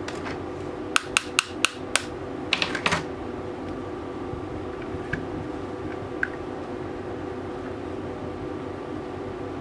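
Sharp clicks of the parts of a Tokyo Marui Hi-Capa airsoft pistol's frame and grip as they are handled and worked apart: five quick clicks about a second in, then a short rattle of clicks, and two faint ticks later, over a steady background hum.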